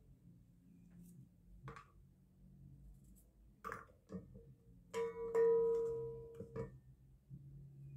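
Utensils clicking and scraping against an empty stainless steel pot. About five seconds in, the pot is struck and rings with a clear metallic tone for about a second and a half.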